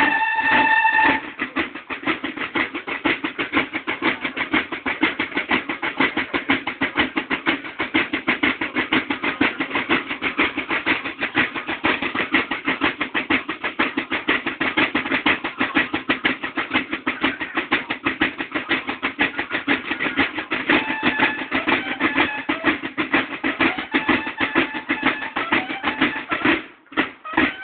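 A banda de guerra's marching drums play a fast, steady cadence. Bugles sound together at the start, drop out about a second in, and come back faintly about three-quarters of the way through. The drumming breaks off briefly near the end.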